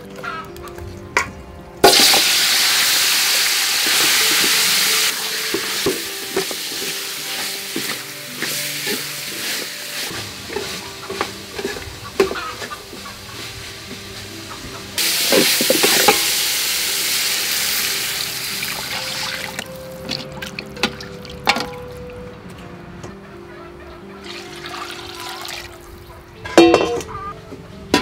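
Marinated pork ribs tipped into hot cooking oil in a metal pot: a loud sudden sizzle about two seconds in, which eases off slowly as the ribs fry and a metal ladle stirs and clinks against the pot. The sizzle flares up again about halfway through as the ribs are turned.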